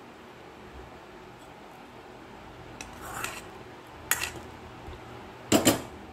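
Metal spoon and ladle clinking and scraping against steel cookware as a small pan of ghee-fried cashews and cardamom is scraped out into a stainless steel pot of milk. A few sharp clinks start about three seconds in, the loudest a quick double clink near the end.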